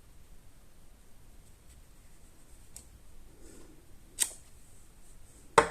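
Paper-crafting tools handled on a work table: faint rustling, a sharp click about four seconds in, and a louder clack near the end.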